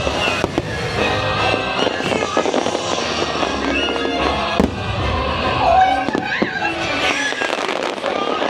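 Fireworks bursting over the fireworks show's loud soundtrack music.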